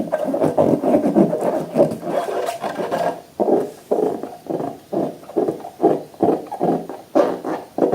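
Slime being squished and kneaded by hand, a continuous wet rubbing that turns, about three seconds in, into regular squelches about twice a second.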